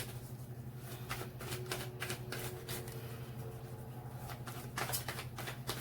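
Tarot cards being shuffled by hand: a run of quick, irregular soft clicks and slaps, over a steady low hum.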